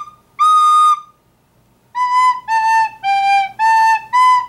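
Plastic recorder played: one held note of about half a second, then after a pause of about a second, a run of five short notes that step down in pitch and back up again.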